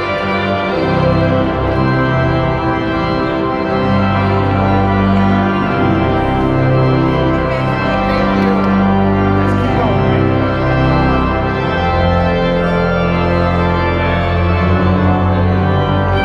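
Organ music: sustained chords that shift every second or so over a steady, held bass.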